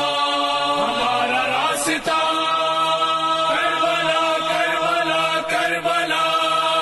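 A voice chanting an Urdu nauha (elegy) in long drawn-out notes. Each held note changes pitch about a second in and again past the midpoint.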